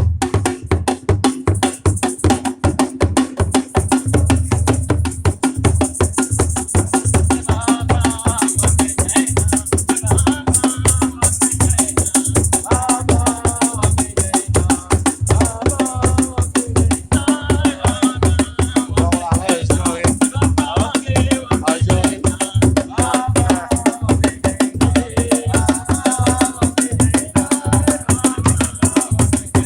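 Gospel praise music: a fast, steady drum and percussion beat, with singing voices coming in about eight seconds in.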